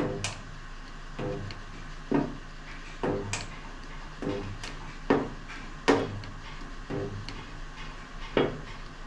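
GD90E spot welding dent puller firing again and again as studs are welded to the car body's sheet steel: irregularly spaced sharp clicks, several followed by a brief low hum.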